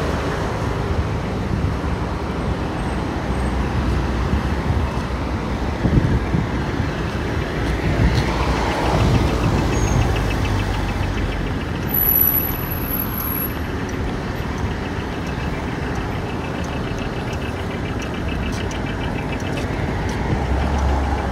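Road traffic at a city intersection: cars and motor scooters passing in a steady hum of engines and tyres, with one vehicle swelling louder about eight seconds in.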